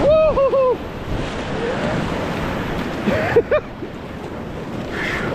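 Rushing whitewater of a steep creek running steadily throughout, with a paddler's short yells in the first second and again briefly about three seconds in.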